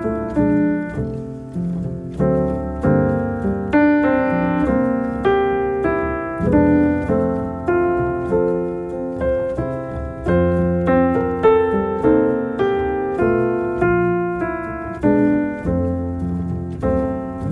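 Solo piano music: chords and a melody, with a fresh note or chord struck about every half second to a second.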